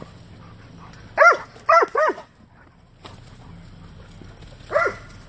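A dog barking: three quick high barks a little over a second in, then one more bark near the end.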